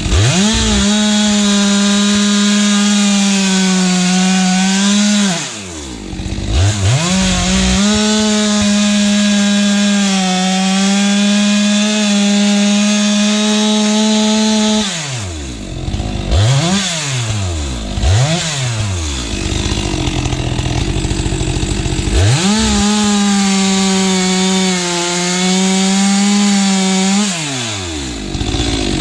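STIHL MS462 two-stroke chainsaw held at full throttle through three long cuts in firewood logs. It drops off between cuts, and in the middle gap it gets a few quick throttle blips and a short idle.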